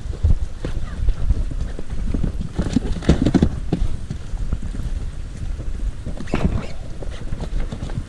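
Irregular hollow knocks and clatter as gear is rummaged in a compartment under a boat seat, busiest in a cluster about three seconds in and again near the end, over a steady low rumble of wind on the microphone.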